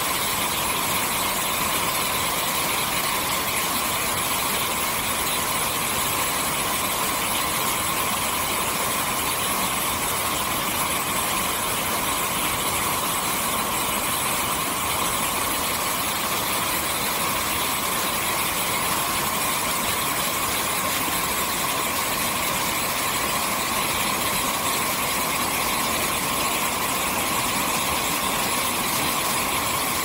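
A stream's water running in a steady, unbroken rush, with faint steady high-pitched tones over it.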